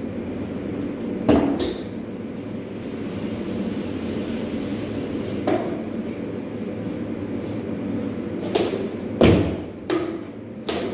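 Drywall finishing work: a steady hum and hiss with about six sharp knocks and thuds from tools against the plasterboard, the loudest about nine seconds in.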